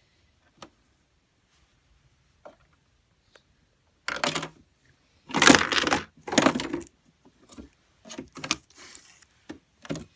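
Plastic LEGO parts clicking, then rattling and clattering in several bursts as the brick-built vending machine is handled, the loudest about halfway through; a few short rattles follow near the end.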